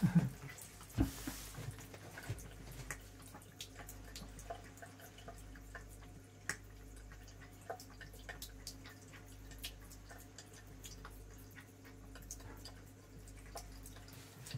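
Water dripping from a washbasin tap into the sink as a cat drinks at it, small irregular drips over a faint steady hum. There is a soft thump about a second in.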